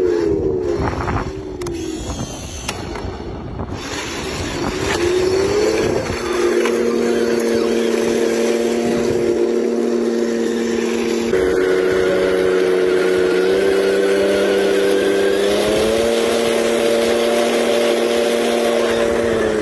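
Remote-control drift car's electric motor whining under throttle: the pitch drops near the start, climbs again after about five seconds, then holds nearly steady with small shifts.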